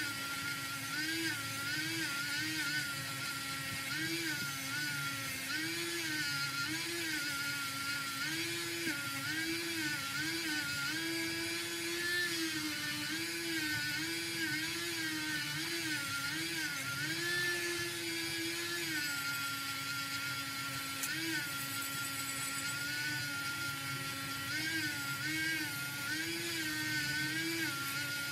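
A small cordless rotary tool spinning a brass wire wheel brush against a die-cast metal toy car body, scrubbing off the last traces of red paint. Its motor whine holds steady, with the pitch repeatedly dipping and rising as the brush meets the metal.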